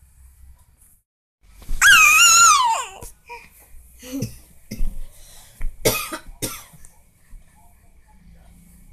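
Baby giving one loud, high-pitched squeal lasting about a second, its pitch dropping at the end, about two seconds in. Several short, sharp coughing vocal sounds follow.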